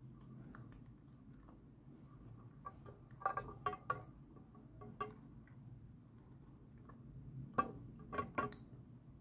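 A person biting and chewing dry chunks of edible clay: sharp crunches in two clusters, about three seconds in and again near the end, with soft chewing between.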